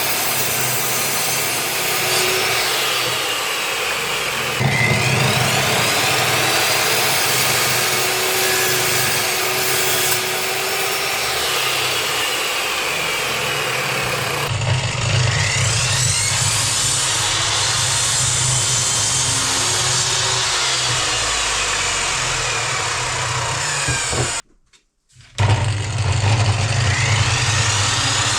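A power saw running and cutting wooden boards, a steady loud machine noise with a low hum underneath. The sound jumps abruptly about five seconds in and again near the middle, and drops out for a moment near the end, as separate cuts follow one another.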